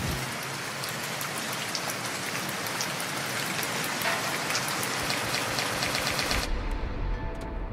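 A steady hiss with a patter of fine clicks, like rain, in the video's soundtrack. About six and a half seconds in, the hiss gives way to music with a bass line and steady tones.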